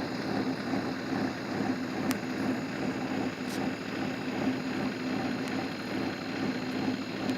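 Vehicle engine running steadily with a constant low drone, heard from inside the vehicle. A few faint clicks come through about two, three and a half, and five and a half seconds in.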